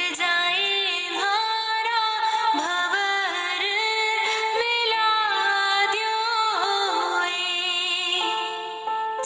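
A woman singing a Rajasthani folk song, with long held notes that bend and glide in pitch, and a short lull near the end.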